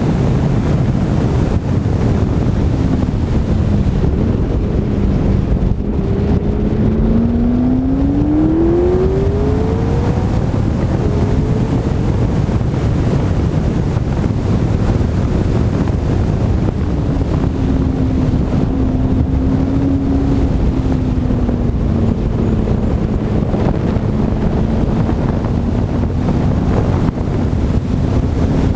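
Loud wind rushing over an externally mounted camera's microphone as a McLaren 12C drives at track speed. Under the wind, the car's twin-turbo V8 can be heard: its pitch dips, then climbs as the car accelerates about a third of the way in, and it later holds a steadier note.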